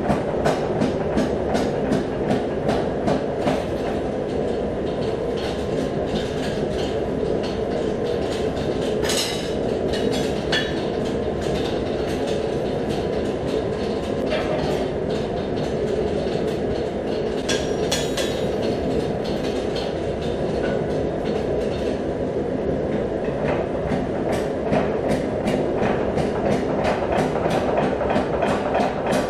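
Mechanical power hammer pounding a red-hot damascus barrel tube, a rapid steady run of blows about three a second. The blows thin out in the middle while the tube is reheated in the forge, then the steady hammering starts again near the end, over a continuous running noise from the machinery.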